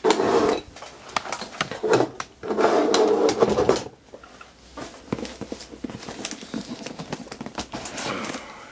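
Handling noise from objects being moved about by hand on a desk: a few louder rubbing, scraping stretches in the first four seconds, then a run of small clicks and bumps as the camera is picked up and moved.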